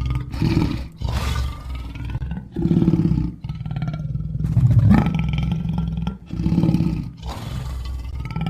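Lions roaring: a run of deep roars, one after another, about every second.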